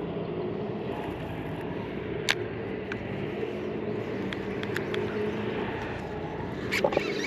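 Steady drone of machinery running continuously in the background, a low hum with a steady pitch. A sharp click comes about two seconds in, and a few sharp snaps near the end.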